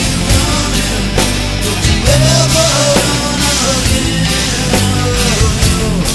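Rock song with guitar and bass over a steady beat. A note bends up and back down about two seconds in.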